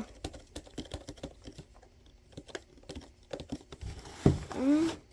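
Cardboard box and its contents being handled and opened: a run of small clicks, taps and crinkles. Near the end a short voiced hum or grunt rises in pitch.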